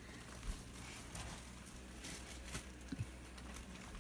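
Faint handling noises: a few soft taps and light rustling over a low room hum.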